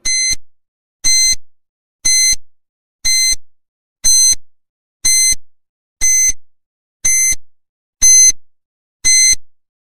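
Countdown timer beeping once a second: ten short, high-pitched electronic beeps, evenly spaced, counting down the seconds left to answer.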